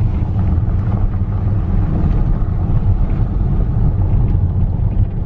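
A car in motion heard from inside the cabin: a loud, steady rumble of road and wind noise.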